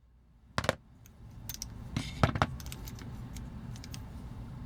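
Scattered light metallic clicks and taps of a pin punch working a pin out of a die-cast metal toy, over a low steady hum that comes in about a second in.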